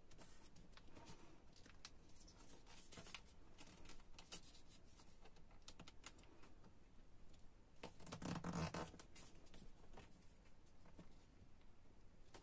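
Faint rustling and crinkling of a sheet of origami paper being folded and creased by hand, with a louder rustle about eight seconds in.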